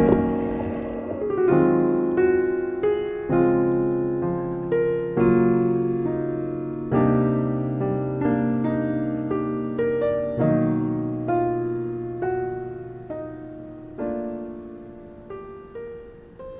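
Slow solo piano music: single notes and chords struck about once a second and left to ring, gradually fading out.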